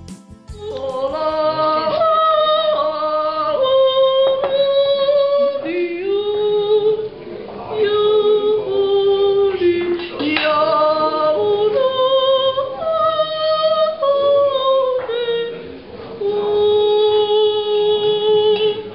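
A woman yodelling solo and unaccompanied: long held notes with sudden leaps in pitch between low and high, in three phrases with short breaks between them.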